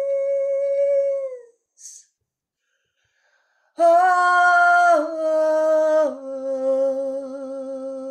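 A woman singing unaccompanied. One long held note fades out about a second and a half in, followed by a pause of about two seconds. Then comes a loud phrase of three held notes, each lower than the last; the final one wavers and fades.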